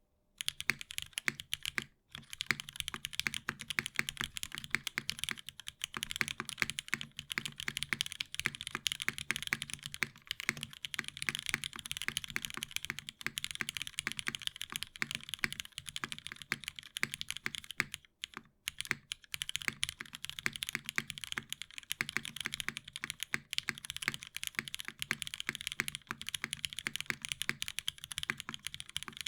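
Continuous typing on a Dalco 959 Mini 60% custom mechanical keyboard: top-mounted aluminium plate, lubed Cherry MX Hyperglide Black linear switches, GMK keycaps. The typing starts about half a second in, with brief pauses about two seconds in and near eighteen seconds.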